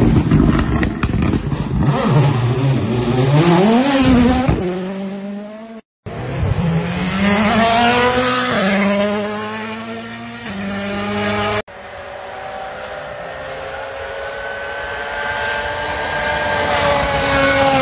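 2022 WRC Rally1 cars' turbocharged four-cylinder engines in three quick passes at stage speed, cut together: the engine note drops and climbs again, then rises in steps through gear changes, then climbs slowly and steadily as the last car comes closer.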